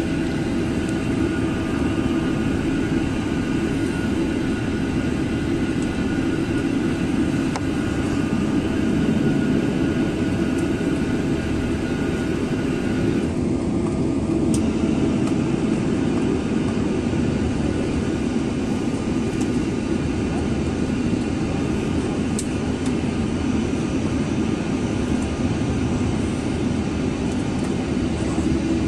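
Steady cabin noise inside a Boeing 777 while it taxis: its twin jet engines running at low taxi power, heard as an even rumble with a faint steady whine that drops out about halfway through.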